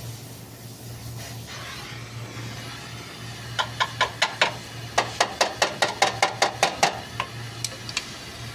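Oxy-acetylene welding torch hissing, then from about three and a half seconds a small hammer tapping quickly along a fresh weld on a steel vehicle chassis rail, about three sharp metallic taps a second.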